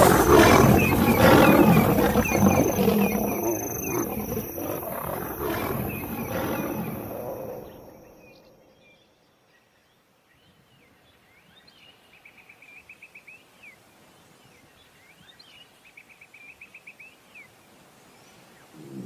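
Lions roaring in a clash with rival nomadic males. The sound is loud at first and fades away over about eight seconds, leaving faint, evenly repeated high trilling calls.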